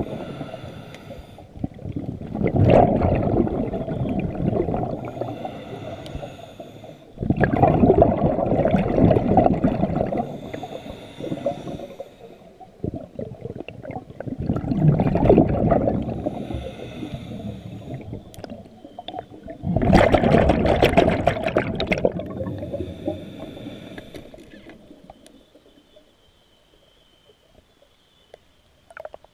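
Diver breathing underwater through a regulator: a faint hissing inhale, then a rush of exhaled bubbles, four breaths several seconds apart, going quiet near the end.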